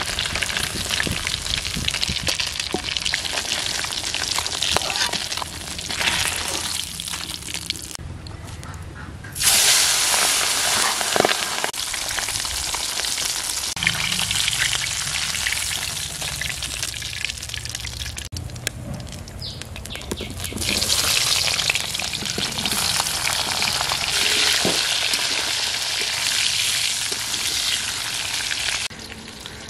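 Pabda fish frying in hot oil in an iron wok: a steady, loud hiss of sizzling. The sizzle drops away suddenly and comes back louder several times.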